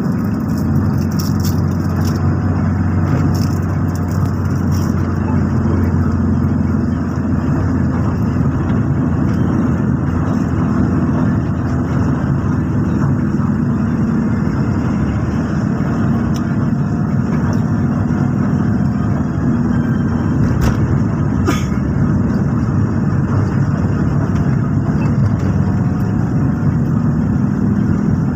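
Steady engine and tyre road noise inside a moving car's cabin, with a couple of brief knocks about two-thirds of the way through.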